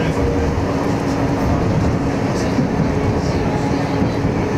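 Running noise inside an AnsaldoBreda Sirio tram in motion: a steady rumble of wheels on rail, with a steady hum under it and a few faint clicks.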